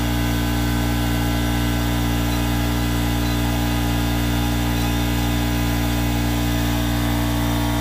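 Steady, loud machine hum with a low drone that does not change in pitch or level.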